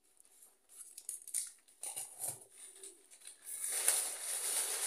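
Light rustles and taps of packaging being handled, then a plastic carrier bag rustling loudly from about three and a half seconds in as it is lifted and rummaged through.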